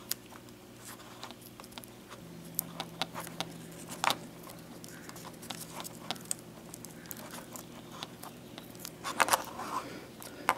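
Vinyl electrical tape being wound by hand around a soldered wire splice: scattered soft crinkles and small clicks, with a slightly louder cluster near the end.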